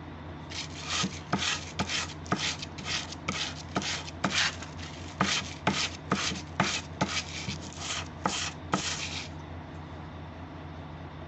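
Steel knife blade, forged from an old wrench, being honed on a flat sharpening stone: a quick run of about seventeen back-and-forth scraping strokes, roughly two a second, with a short pause midway. The strokes stop about nine seconds in.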